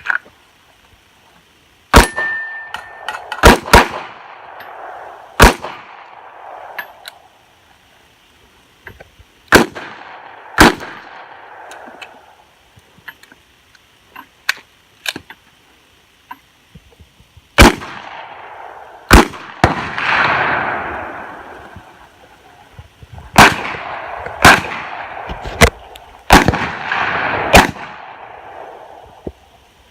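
Smith & Wesson Model 66 revolver shots, about a dozen in all, fired in strings of one to three with pauses of several seconds between groups, each shot followed by a ringing echo. A short electronic beep sounds about two seconds in, just as the first shot goes off.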